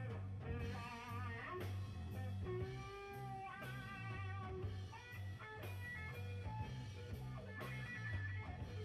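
Background music: an electric guitar playing wavering, bent lead notes over a steady bass and drum beat, in a bluesy rock style.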